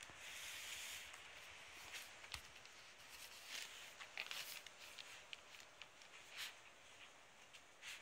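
Faint scratching and rustling of 24-day-old rough collie puppies' paws and claws on puppy pads and newspaper, with scattered light clicks.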